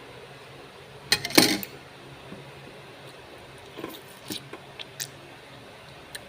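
A spoon clattering against a bowl in a quick run of strokes about a second in, the loudest sound, followed a few seconds later by several lighter clinks.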